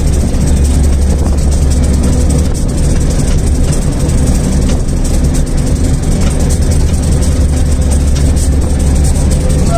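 Diesel locomotive engine running with a steady, heavy low rumble, heard from the cab as the train moves slowly along the track.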